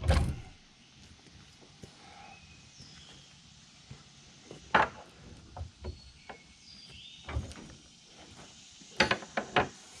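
Scattered sharp knocks and clanks of a hydraulic hose and its metal fittings being handled against a truck's hydraulic valve bank. There is a loud knock at the start, single ones in the middle, and a quick run of about four near the end.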